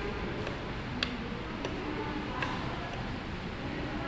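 Metal fork clicking against a plate a few times while twirling spaghetti, the sharpest click about a second in, over steady background noise.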